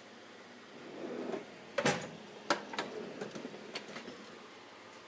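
Metal drawers of a 56-inch Mastercraft Maximum tool chest sliding on their runners: a short slide, then a loud clack just before two seconds in, a second clack about half a second later, and a few lighter clicks and rattles of tools.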